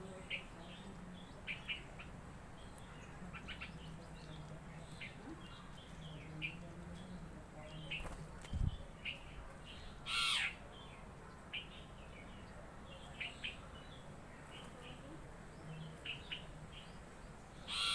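Birds chirping: many short, high chirps throughout, with a louder harsh call about ten seconds in and another near the end. A steady low hum runs underneath, and there is a single dull thump about eight and a half seconds in.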